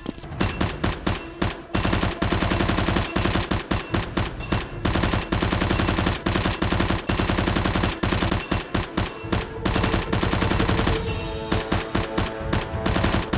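Rapid automatic gunfire sound effects, many shots a second in long bursts with brief breaks, over a steady music bed.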